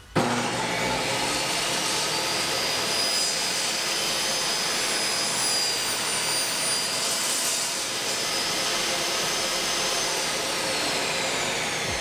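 Table saw running steadily as a crosscut sled carries a small piece of quarter-inch poplar through the blade; the whine comes in suddenly just after the start.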